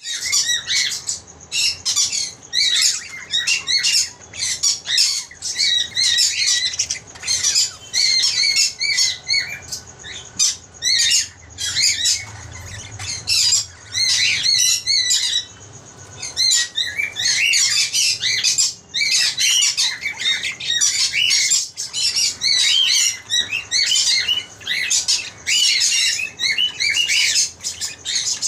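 Several small pet parrots chattering and squawking in fast, overlapping high-pitched chirps, with a quieter spell about halfway through.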